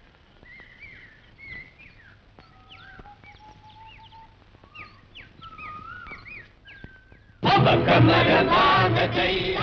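Birds chirping and whistling faintly in short, rising and falling calls. About seven seconds in, a loud chorus of voices suddenly starts a chanted song.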